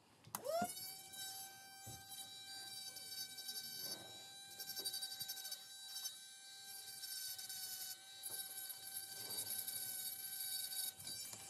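Electric rotary tool handpiece with a small file bit spinning up to a steady high whine, grinding on a hearing aid shell to clean away dried instant glue around the faceplate. It cuts off shortly before the end.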